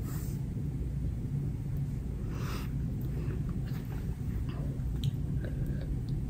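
Steady low background rumble, with a faint breath-like hiss about two and a half seconds in and a few small soft clicks and rustles of handling.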